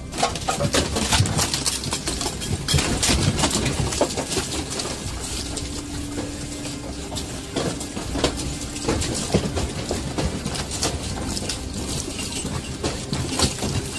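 Shelving and household objects rattling and clattering with many rapid knocks, and water sloshing in a glass aquarium, as a room shakes in an earthquake.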